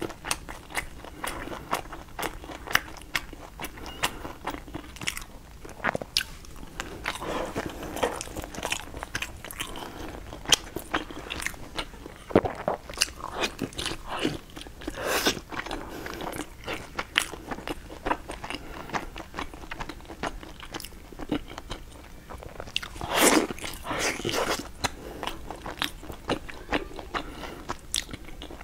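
Close-up eating sounds: a person biting and chewing pieces of soft, sauce-coated food from chopsticks. Many small, irregular wet mouth clicks, with a few louder bites around the middle and about two-thirds of the way through.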